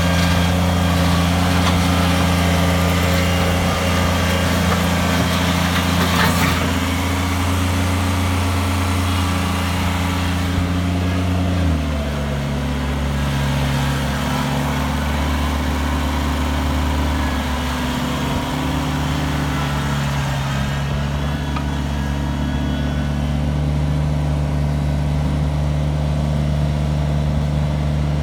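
Kubota BX25 tractor's three-cylinder diesel engine running steadily, then dropping to a lower engine speed about twelve seconds in. There is a brief clatter at about six seconds.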